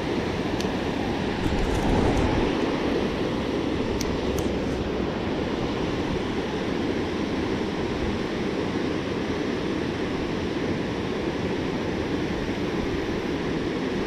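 Steady rush of river water pouring over a low-head dam and churning below it, with a few light clicks in the first five seconds.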